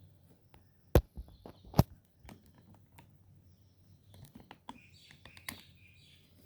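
Two sharp clicks about a second apart, then a scatter of lighter clicks and taps, from handling the Arduino board, breadboard and jumper wires. Faint chirps sound high up a little after halfway.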